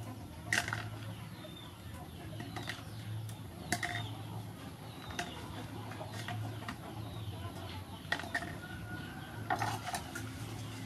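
Chickens clucking now and then: a handful of short, sharp calls a second or more apart, over a steady low hum.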